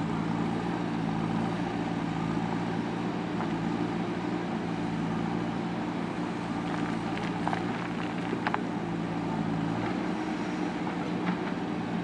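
JCB 3DX Super backhoe loader's diesel engine running steadily while the backhoe digs, with a few light knocks and clicks about two-thirds of the way through and a change in the engine note near the end.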